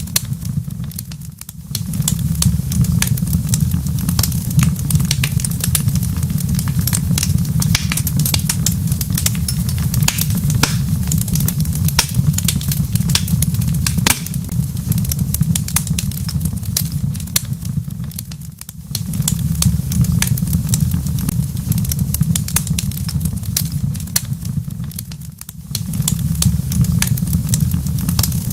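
Wood fire in a fireplace crackling and popping, with frequent sharp snaps over a steady low rumble. The sound dips briefly three times.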